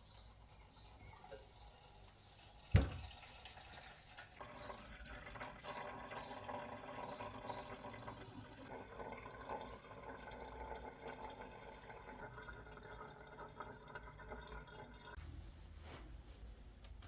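Water running and dripping in a small room, with one sharp knock about three seconds in.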